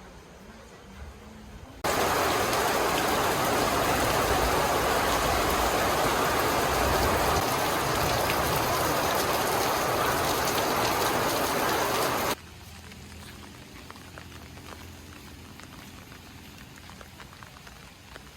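Steady hiss of heavy rain that starts abruptly about two seconds in and cuts off suddenly after about ten seconds. Softer patter with scattered drips comes before and after.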